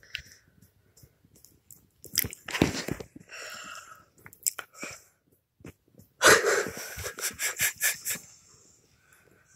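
Pit bull snorting and breathing wheezily through its nose. A snort comes about two seconds in, and a quick run of huffing snorts comes near the middle to late part.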